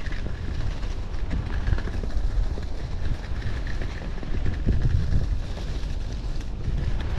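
Wind rushing over an action camera's microphone on a fast ski run at about 45–50 km/h, a steady low rumble, with skis hissing over groomed snow.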